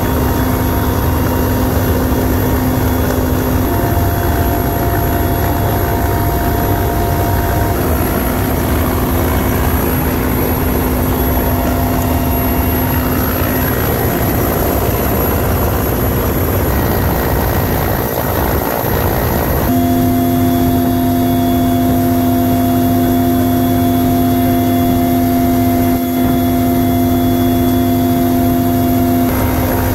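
Mi-8MTV-1 helicopter's twin turboshaft engines and main rotor running steadily in a hover, heard inside the cabin with the side door open: a loud steady drone with a constant whine on top. For a stretch in the middle the whine partly gives way to a rush of wind.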